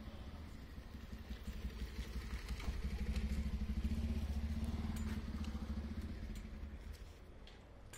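A motor vehicle's engine passing close by: a low steady engine note that grows louder over the first few seconds, peaks around four seconds in, and fades away near the end.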